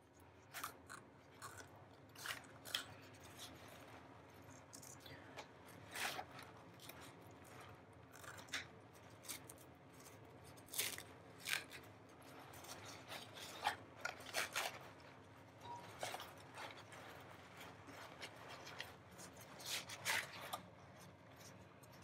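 Faint paper-towel wrapping rustling and crinkling in short, irregular crackles as hands peel it off a small potted plant.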